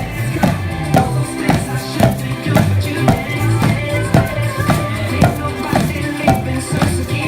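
Recorded song with a steady beat of about two strikes a second, with a group drumming along on Pilates balls struck like drums.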